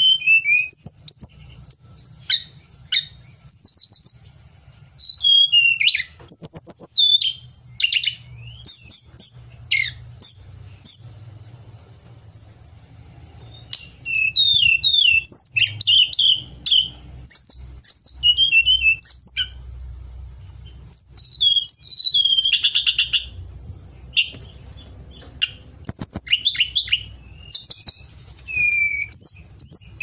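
Hill blue flycatcher (tledekan gunung) singing: quick bursts of high, sliding whistled phrases, with a pause of about two seconds near the middle.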